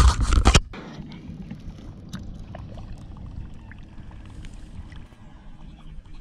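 A loud rush of wind and handling on an action camera's microphone lasting about half a second, then a steady low wind rumble with a few faint small water sounds as a bass is held in the water for release.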